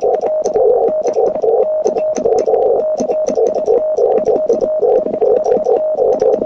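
Morse code keyed on a Vibroplex Lightning Bug semi-automatic key: quick mechanical clicks from the key's contacts, with a single steady CW tone switching on and off in a fast irregular rhythm over hiss from the receiver's narrow CW filter.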